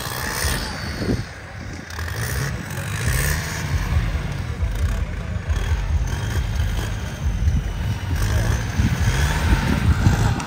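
Off-road vehicle's engine revving, its pitch rising and falling repeatedly, a little louder toward the end.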